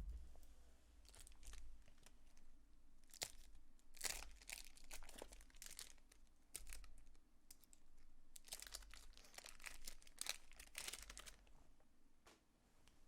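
Faint crinkling and tearing of a baseball card pack wrapper being opened by hand, in scattered crackly bursts that bunch together a few seconds in and again after the middle.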